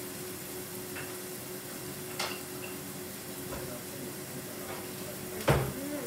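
Chopsticks clicking against a ceramic bowl a few times, then a louder knock with a dull thud near the end, over a steady faint hum.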